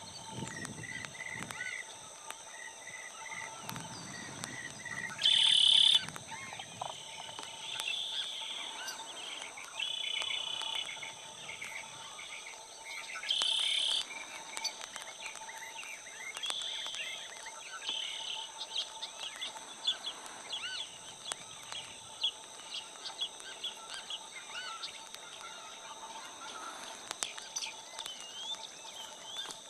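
Birds chirping and calling, with two louder short calls about five and thirteen seconds in, over a steady high-pitched insect drone.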